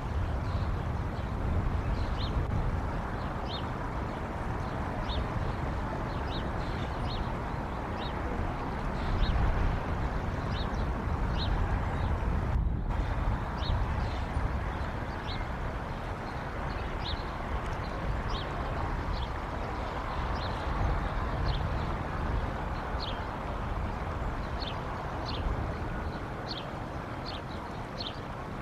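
Steady low rumble of wind on an outdoor microphone, with short high chirps of small birds repeating every second or so throughout.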